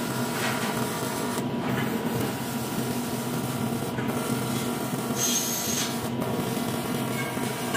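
Electric welding arc on aluminium, a steady buzz with a constant hum underneath. A brief high-pitched tone sounds just past five seconds in.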